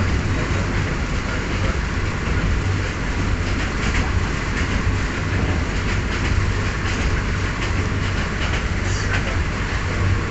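Passenger train running along the line, heard from inside the carriage: a steady rumble and rushing noise with wheels clicking over the rail joints now and then.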